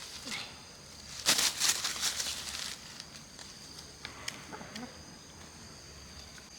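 Chickens clucking, with a loud flurry of wing flapping from about a second in that lasts over a second.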